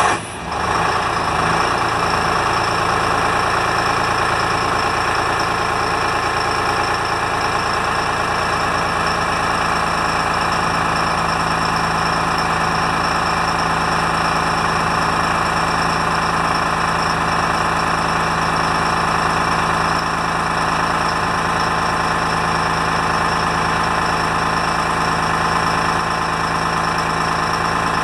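Detroit Diesel 6V53 two-stroke V6 diesel catching right at the start and then idling steadily, with a steady high whine on top, heard from the cab. This is the first run after an oil change, to fill the new filter and circulate the fresh oil.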